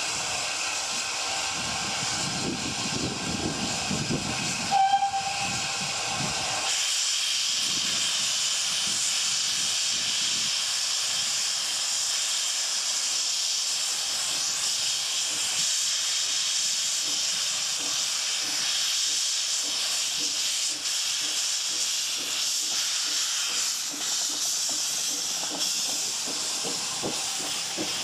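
GWR steam railmotor No.93 sounding its steam whistle as one long, steady note for about the first six seconds over a loud hiss of escaping steam. The whistle then stops and the steam keeps hissing steadily as the railmotor runs up and passes, with faint rhythmic beats underneath in the second half.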